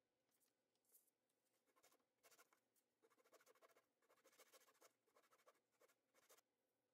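Faint rasping of a wine cork being sanded on a mesh sanding screen, in short back-and-forth scratching strokes that start about a second in and stop shortly before the end.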